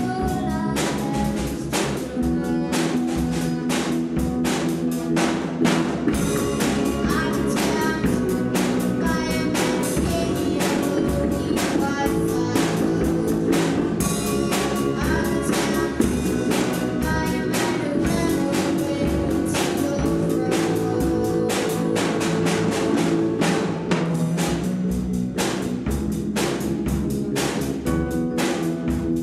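Rock band playing a song: drum kit with regular hits over electric guitars and electric bass guitar, at a steady level throughout.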